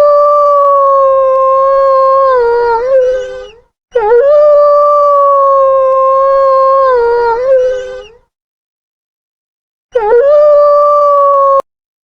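Wolf howling: three long, steady howls with gaps of dead silence between them. The first two each waver and drop in pitch at the end; the third stops abruptly.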